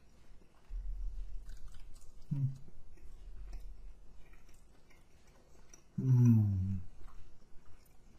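A man chewing a bite of chicken wing cartilage close to the microphone, with small wet mouth clicks. A short hum comes about two seconds in, and a louder, longer hum about six seconds in.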